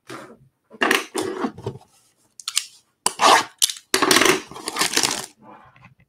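Cardboard trading-card blaster box being lifted off a stack of boxes and handled, making a run of irregular scraping and rustling noises that are loudest in the second half.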